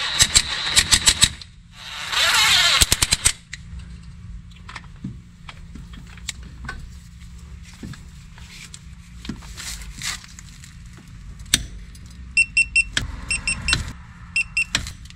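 Cordless impact wrench hammering in two bursts as it runs bolts into a wheel hub. Then a long-handled ratchet clicks in several short runs near the end, as the bolts are snugged by hand.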